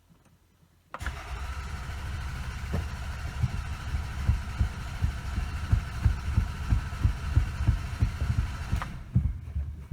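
Toyota Camry engine being cranked by its starter motor without catching, a steady starter whine over rhythmic low thumps; with the EFI fuse pulled, the fuel injection has no power, so the engine turns over but will not fire. The cranking starts suddenly about a second in and the whine cuts off near the end.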